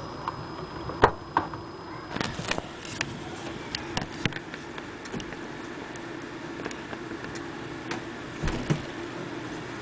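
Hailstones striking hard surfaces in a storm: irregular sharp clicks and knocks, several in quick clusters, over a steady hiss of rain. The loudest strike comes about a second in.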